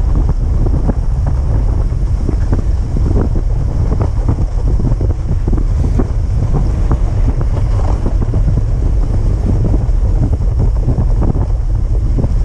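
Wind buffeting the microphone in a heavy, steady low rumble, with an irregular scraping crunch of a dog-drawn rig moving over packed, groomed snow.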